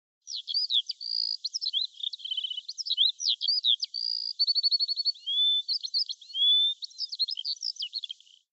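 A songbird singing a long, fast, varied song of short whistles, trills and rapid note runs, stopping abruptly near the end. Only the high notes are present, with no background sound beneath them.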